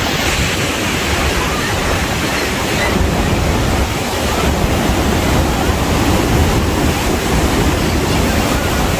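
Steady roar of Niagara's Bridal Veil Falls pounding onto the rocks close by, with wind buffeting the microphone.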